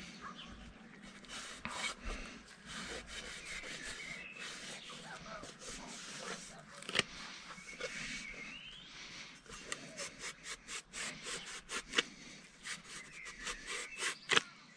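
Rubbing and scraping on the steel shell of an M42 helmet, working off paint softened by paint stripper. The strokes turn short and quick, about two to three a second, in the second half.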